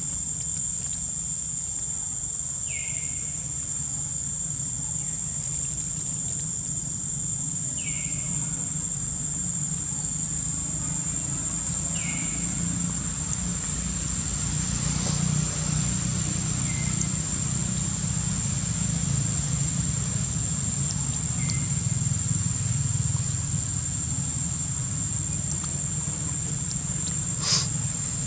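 Outdoor ambience: a steady high-pitched insect drone over a low, steady rumble, with a short falling bird chirp about every four or five seconds, five in all. A single sharp click comes near the end.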